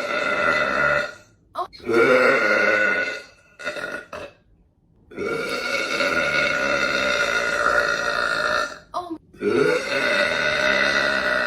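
A woman burping loudly, a run of long, deep burps with short pauses between them. The longest burp lasts nearly four seconds.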